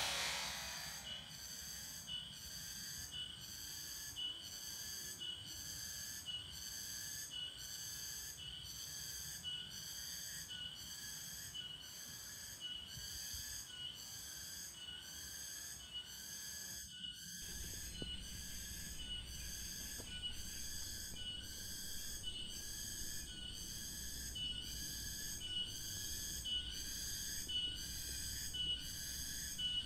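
Insect chorus, a pulsing call of several high ringing tones repeating about once a second. A faint low rumble joins about halfway through.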